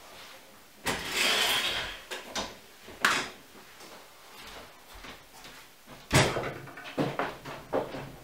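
Folding ironing board being collapsed: a scraping slide of its metal legs and a few sharp clacks, then a few seconds later a louder clatter and several knocks as it is put away.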